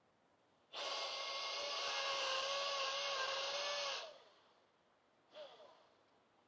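Small electric power tool motor running steadily at one pitch for about three seconds, then cut off sharply.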